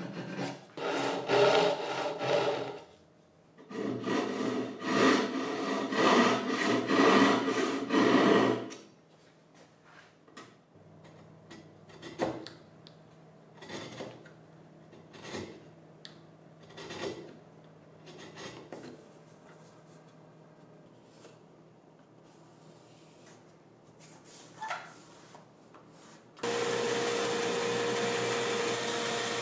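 A gent's-style back saw cutting a walnut board by hand, in quick rhythmic strokes with a short pause about three seconds in; the sawing stops after about eight and a half seconds. Then faint, slow strokes of a file drawn along the edge of a walnut panel, and about 26 seconds in a band saw switches on and runs with a steady hum.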